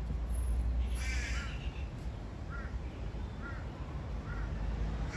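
Crow cawing: a quick cluster of calls about a second in, then single shorter caws roughly once a second. A steady low rumble runs underneath.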